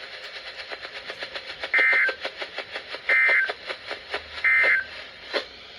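Emergency Alert System end-of-message (EOM) data bursts: three short, identical bursts of two-tone digital screech about a second and a half apart, signalling the end of the weather warning broadcast. Underneath runs a rapid, regular ticking.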